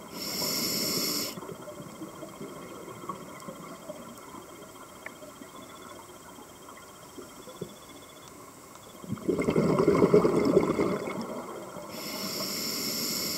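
Scuba diver's regulator breathing underwater. A short hissing inhalation comes first, then a long pause. About nine seconds in there is a rush of bubbling exhaled air lasting a couple of seconds, and another hissing inhalation comes near the end.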